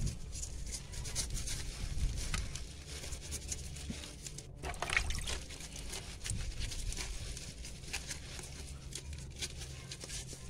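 Wet scouring sponge scrubbing a live crab's shell and claws in vinegar-and-lime water: an irregular run of small scratches and clicks.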